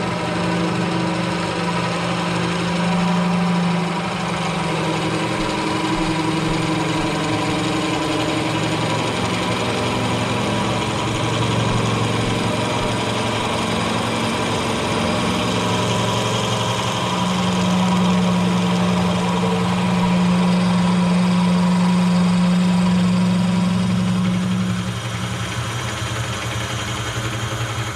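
Milling machine running with a twist drill boring into a steel crank counterweight: a steady motor hum with the cutting noise of the bit. It grows louder through the second half and eases near the end. The hole is a balancing hole drilled to lighten the crank.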